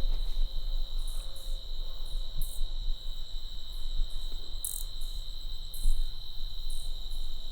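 Crickets chirping in a steady high shrill trill, with short bursts of very high hiss now and then and a low rumble beneath.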